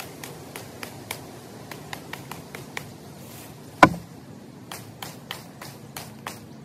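Light, quick chops of a Skachet, a small hatchet-like belt tool, striking a freshly cut green branch, about three sharp knocks a second, with one much harder strike about four seconds in.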